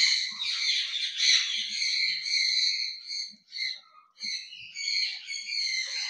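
Pet parrots chattering and squawking in irregular bursts of high calls, with a brief lull about two-thirds of the way through.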